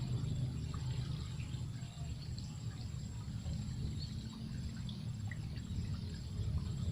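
Outdoor ambience: a steady low rumble under an insect's high, pulsing trill, with scattered faint bird chirps.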